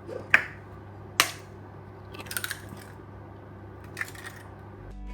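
Eggs being cracked against a bowl: a few sharp cracks and crunches of shell, the two loudest about a third of a second in and just after a second. Music fades in at the very end.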